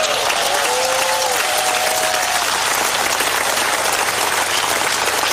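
Large crowd applauding steadily, with a few voices calling out over the clapping in the first two seconds.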